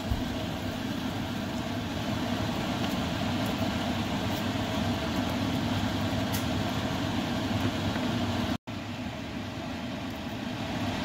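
Steady low rumbling hiss of sweet and sour sauce (onions, ketchup, hoisin sauce and chicken broth) heating in a frying pan on the stove as it is stirred with a wooden spatula. The sound cuts out for an instant about two-thirds of the way through.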